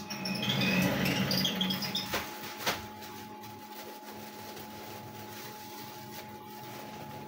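Cotton candy machine's spinner motor running with a steady hum, with a few sharp clicks about two and a half seconds in.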